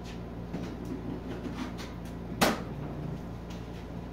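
Small clicks and knocks of things being handled, with one sharp knock about two and a half seconds in, over a steady low hum.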